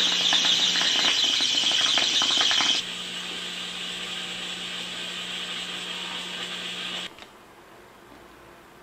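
Glass bong bubbling as it is hit: a dense rapid clicking and gurgling that drops to a quieter, steadier bubbling about three seconds in and stops abruptly about seven seconds in.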